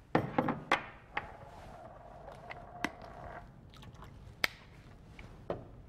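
Sparse light clicks and small knocks from handling a small bottle of vanilla extract at the counter, about seven in all, with a faint steady hum for a second or two in the middle.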